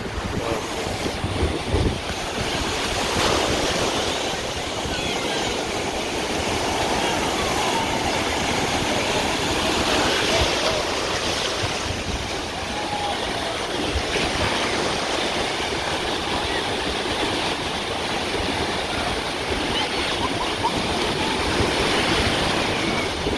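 Ocean surf at the shoreline: a steady rush of waves breaking and washing, heard from out in the water.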